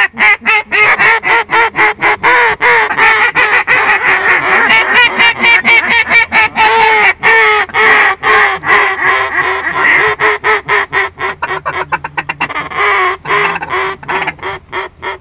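Duck call blown hard in the blind: a long unbroken run of loud, rapid quacks and chuckles, the notes coming faster and a little softer over the last few seconds, calling to ducks working the decoys.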